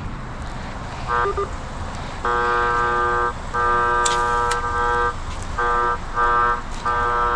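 Radiodetection RD8200 cable locator receiver in power mode, sounding its buzzy signal tone in stretches of about half a second to nearly two seconds with short gaps. The tone starts and stops as the receiver picks up power-line signal from buried cables, where old and new cables are bonded together.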